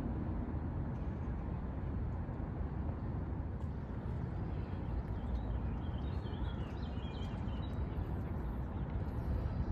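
Steady low outdoor rumble of ambient noise, with a few faint bird chirps in the second half.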